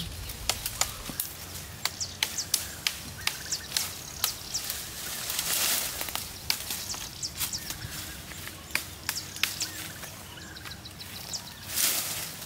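Leafy brush rustling and twigs cracking in irregular sharp clicks as a long cut sapling pole is handled and pulled through the bushes, with a louder rustle about halfway through and again near the end. Birds chirp faintly in the background.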